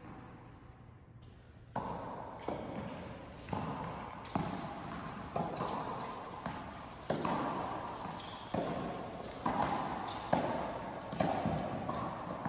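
Tennis rally in an indoor tennis hall: ball struck by rackets and bouncing on the court. The sharp hits come about once a second, starting about two seconds in, and each rings on in the hall's echo.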